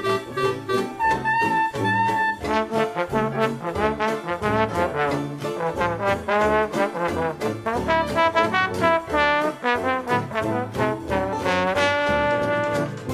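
Background music: a brass-led jazz tune with sliding horn notes over a steady beat.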